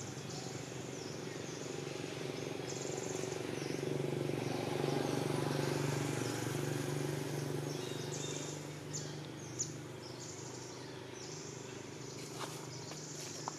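Outdoor woodland ambience: a steady low drone, with high-pitched chirping and buzzing from small creatures that starts and stops. A few light clicks come near the end.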